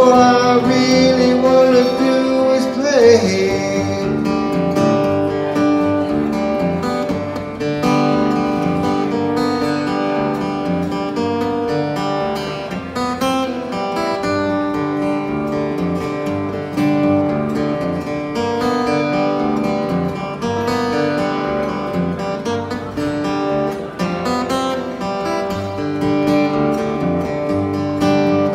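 Acoustic guitar strummed steadily as a solo instrumental passage, with a long sung note near the start that slides down about three seconds in.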